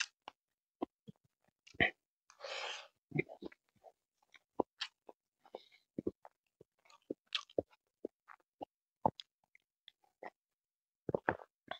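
Close-miked eating sounds: chewing grilled chicken and rice eaten by hand, with scattered irregular wet clicks and lip smacks and a breathy exhale about two and a half seconds in. Swallowing as he drinks juice from a mug near the end.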